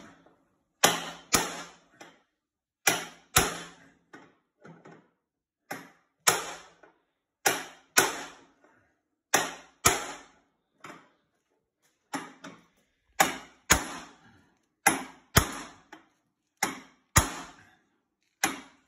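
Ball-peen hammer striking a brass drift punch to drive a ball joint out of a snowmobile's lower A-arm: a steady run of sharp metallic blows, often two in quick succession, each ringing briefly.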